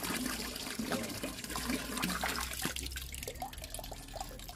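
Water from a garden hose pouring and splashing into a large metal pot already partly full of water. The stream stops about three seconds in, leaving a few drips.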